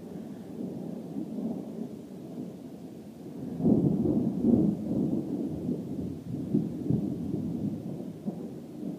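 Thunder rumbling, swelling sharply about three and a half seconds in to its loudest, then rolling on more quietly with smaller surges.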